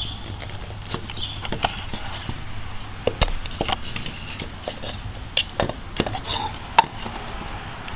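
Plastic RV water-fill inlet being worked by hand, its flap and fitting giving a scatter of sharp plastic clicks and knocks at irregular intervals over a low steady hum.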